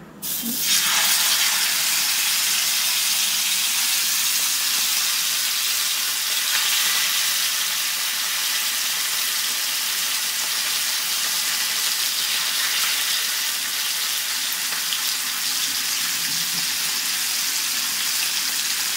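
Masala-marinated fish shallow-frying in hot oil in an iron pan. The sizzle starts sharply about half a second in, as the first fish goes into the oil, and then stays steady.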